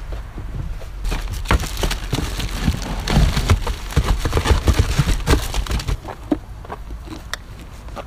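Fireworks being rummaged out of a cardboard box and handled: a busy run of clattering knocks, rustles and crackles, densest in the middle and thinning out near the end.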